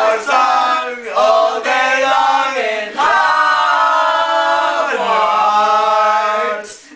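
A small group of young men and women singing together a cappella, holding a few long notes that change pitch every second or two; the singing stops just before the end.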